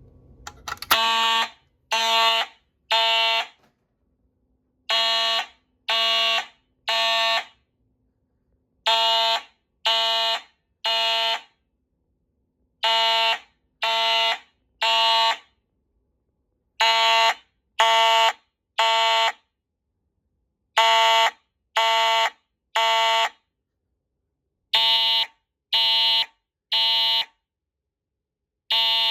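Fire alarm notification horn sounding a temporal-three pattern: three half-second buzzy blasts a second apart, then a pause, the group repeating every four seconds, the standard evacuation signal. A sharp click comes just before the first blast, and a lower tone joins the blasts near the end.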